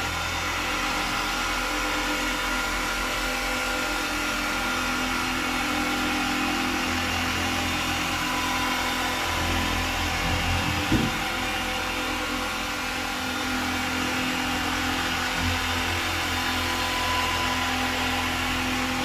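Dual-action orbital polisher with a foam pad running steadily on car paintwork, a continuous motor whine, with a brief change in pitch about eleven seconds in. It is a mopping-up pass that takes off the polish already spread on the panel.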